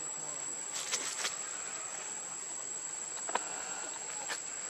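Forest ambience: a steady high-pitched insect whine over a soft background hiss, with a few short sharp clicks or snaps.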